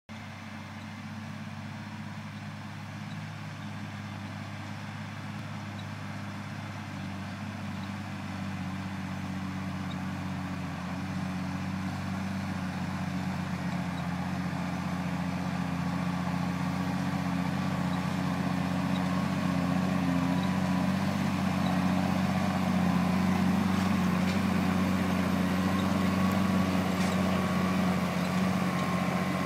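Deutz-Fahr tractor's diesel engine running steadily under load while pulling a disc cultivator, growing steadily louder as the tractor approaches.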